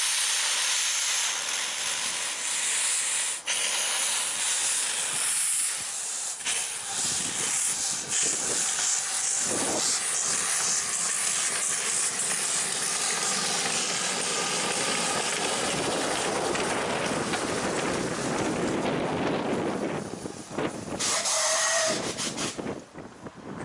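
Miniature steam locomotive blowing steam from its open cylinder drain cocks as it moves off: a loud, continuous hiss that eases and breaks up near the end, with a short pitched sound just before it fades.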